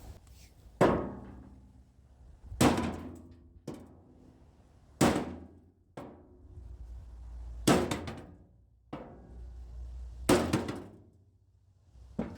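Sledgehammer blows on the dented metal bed of a John Deere lawn cart, knocking the dent out: about a strike every two and a half seconds, each ringing briefly, with a few lighter knocks in between.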